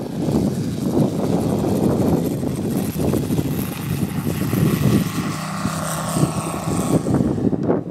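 Moki 250 cc five-cylinder radial engine on a giant-scale RC Grumman F6F Hellcat, turning a 32-inch three-blade propeller and running hard through the takeoff roll and lift-off.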